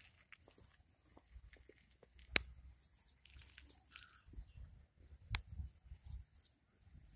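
Faint crunching and crackling from a goat kid chewing feed, with two sharp clicks, the louder one about two seconds in and another about five seconds in.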